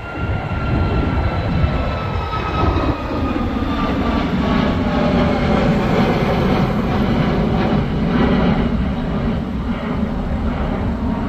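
Jet airliner climbing out after takeoff, its engines giving a loud, steady roar with a faint whine that slowly falls in pitch as it passes.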